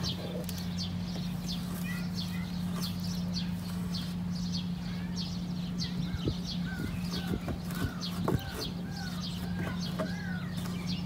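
Birds chirping repeatedly, with a run of short rising-and-falling calls in the second half, over a steady low hum.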